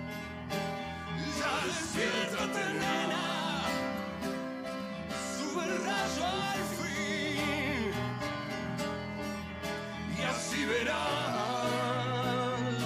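A man singing with vibrato over a strummed acoustic guitar.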